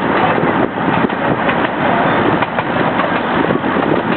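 Miniature park train running along its track, heard from an open passenger car: a steady, loud running noise of the locomotive's engine with the wheels and cars rattling and clicking throughout.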